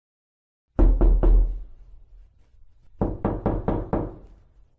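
Knocking on a door: three knocks about a second in, then five more in a quick run about three seconds in.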